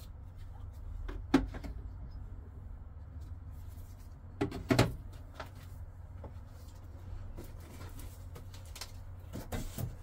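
A few handling knocks and clicks as folding knives are lifted off a bamboo mat: a sharp one about a second in, a cluster near the middle and a softer one near the end, over a steady low hum.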